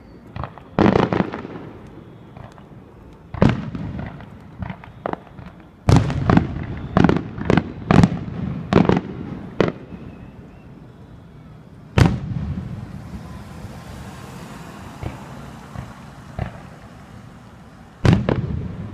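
Fireworks going off: irregular sharp booms, each trailing off in an echo, with a quick run of them in the middle, one big bang about twelve seconds in and another near the end.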